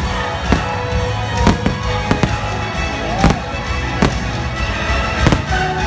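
Aerial fireworks shells bursting, about ten sharp bangs at irregular intervals, over the show's music playing through loudspeakers.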